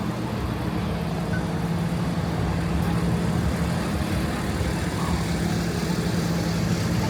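Motor vehicle engine running steadily, a low even hum with road and traffic noise.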